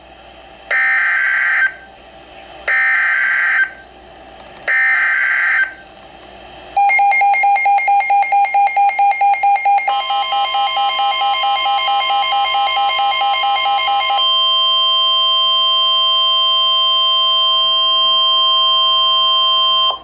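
NOAA Weather Radio emergency alert played through a Midland weather alert radio's speaker: three one-second bursts of screechy digital data tones (the SAME header), then rapid electronic beeping about four to five times a second, joined by a long steady warning alarm tone that continues after the beeping stops and cuts off suddenly at the end. It signals an incoming Severe Thunderstorm Warning.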